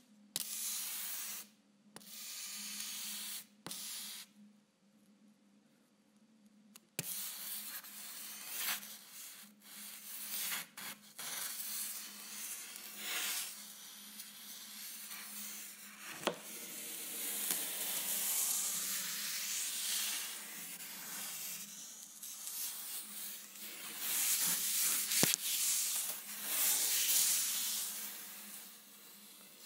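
Charcoal scratching and rubbing on canvas: short separate strokes at first, then almost continuous from about a quarter of the way in, over a low steady hum.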